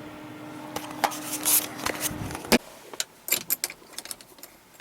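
Keys jangling and a run of sharp clicks and knocks, over a steady hum that stops about two and a half seconds in.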